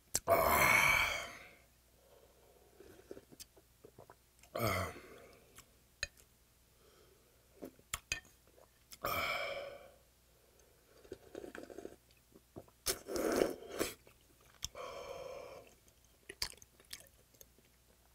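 A person eating stingray soup: chewing and slurping the broth from the bowl, with several loud gasping exhales. The loudest exhale comes right at the start, just after a shot of soju. Sharp little clicks of chopsticks and bowl fall between them.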